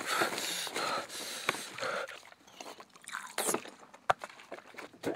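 Hands scraping and digging through dry soil and leaf litter, with a couple of sharp clicks, about a second and a half in and again near four seconds.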